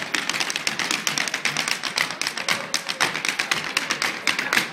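Irish dance hard shoes beating rapid, closely spaced taps on a wooden dance floor, several dancers at once.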